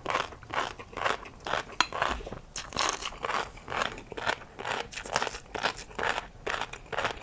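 Close-up chewing of tobiko (flying fish roe) with a crunchy seafood topping: steady, crisp crunching chews at about three a second.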